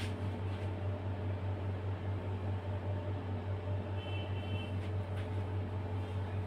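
Steady low machine hum with a constant pitch, and a few faint light clicks.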